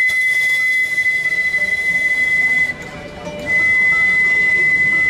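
Steamboat whistle blowing two long blasts at one steady high pitch: the first lasts about two and a half seconds, breaks off briefly, and the second begins about a second later and is held.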